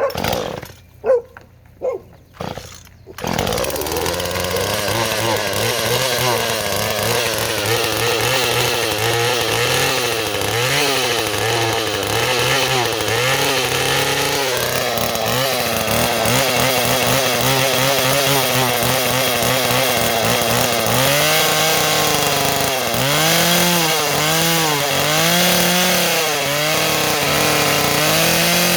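A few short sharp sounds in the first three seconds, then a Husqvarna 240 two-stroke chainsaw starts running. Its speed wanders, and from about two-thirds of the way in it is revved up and let back down several times in a row.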